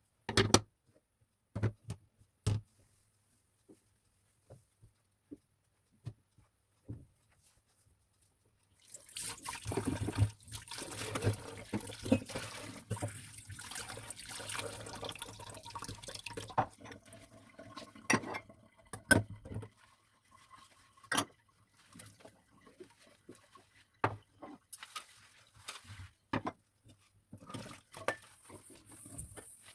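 Water running from a tap into a sink for about eight seconds, starting about nine seconds in. Scattered light clicks and knocks come before and after it.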